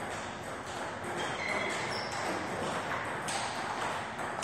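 Table tennis ball clicking off the table and rubber bats as play resumes, in a large hall.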